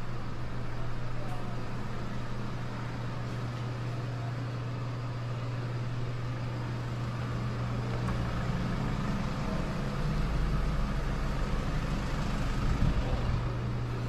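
Steady low mechanical hum with a deeper rumble that swells a little past the middle, like a motor vehicle running.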